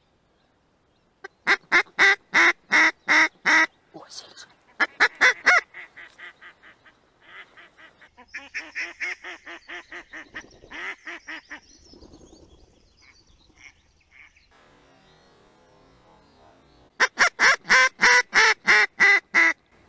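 Mallard hen quacking in fast runs of loud calls, about five a second, several runs in a row with a softer, lower run in the middle and another loud run near the end.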